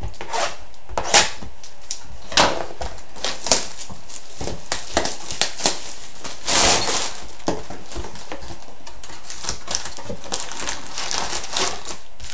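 Trading card packs and cards being handled by hand: a string of light clicks, taps and crinkles, with a longer rustle about six and a half seconds in.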